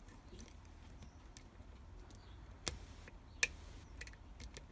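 Faint, irregular metallic clicks of a lock pick and tension wrench working the pins inside a Cisa pin-tumbler lock cylinder during single-pin picking, with two sharper clicks a little past halfway.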